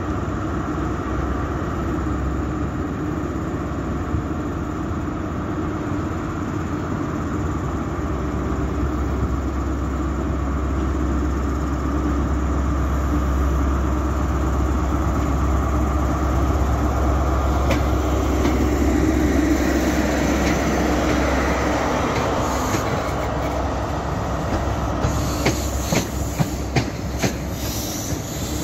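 ScotRail HST Class 43 power car with its MTU diesel engine, coming in and passing with a steady engine drone that grows a little louder towards the middle. Near the end the passing coaches' wheels click rhythmically over the rail joints.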